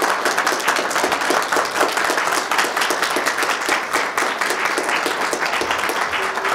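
Applause from a crowd in a hall: many people clapping in a dense, steady patter.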